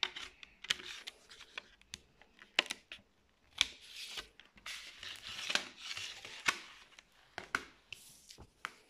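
A plastic CD jewel case being handled: sharp clicks and snaps of the hard plastic, with stretches of paper rustling from the CD booklet, loudest about four to six seconds in.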